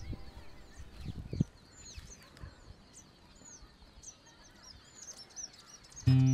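Small birds chirping, short high calls repeating several times a second, with a few dull knocks in the first second and a half. Guitar music comes in near the end.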